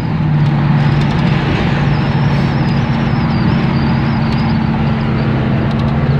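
1982 Chevy C10 pickup heard from inside the cab while cruising: a steady engine drone with a constant hum, under road and wind noise.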